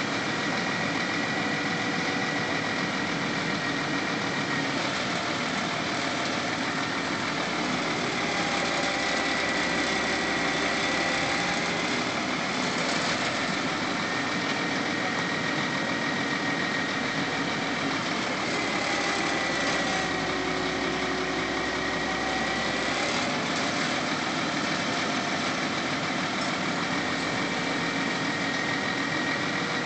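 Truck engine running steadily to power the truck-mounted crane as it lifts a timber roof truss. A whining tone sags in pitch and recovers twice, about a third of the way in and again about two-thirds in, as the crane works.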